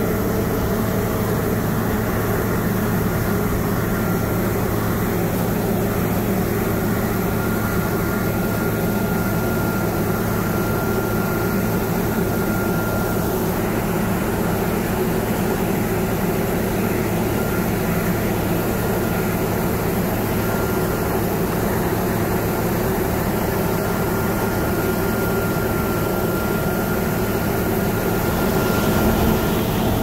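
John Deere T670i walker combine harvester running steadily under load while cutting wheat: a constant engine and machinery drone with a faint high whine that comes and goes.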